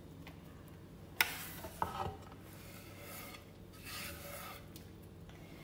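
A hand rubbing and brushing across a wooden chopping board, sweeping up chopped herb scraps, a soft rasping scrape. There is a sharp tap about a second in and a smaller one near two seconds.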